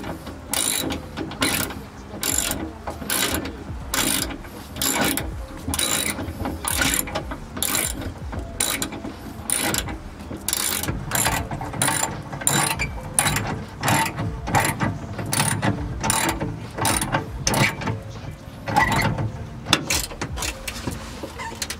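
Hand ratchet wrench clicking in repeated short strokes, about two a second, as bolts are turned in the car's stripped interior body panels.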